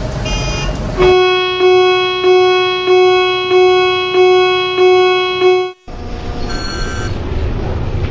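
An electronic warning bell dings eight times, evenly spaced about 0.6 s apart, each ding fading before the next, over steady traffic noise. It cuts off abruptly near the six-second mark, and the traffic noise carries on.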